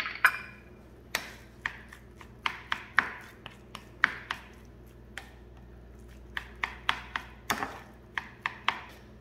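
Plastic rice paddle tapping and scraping against a glass baking dish as sushi rice is cut and mixed: irregular sharp clacks in two runs, with a brief pause between them.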